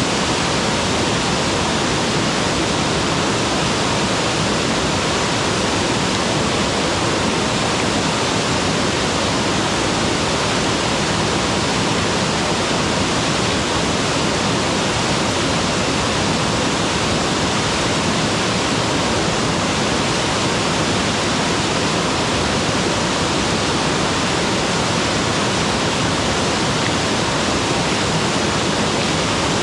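Mountain waterfall: a steady, unbroken rush of falling water, with no changes or separate events.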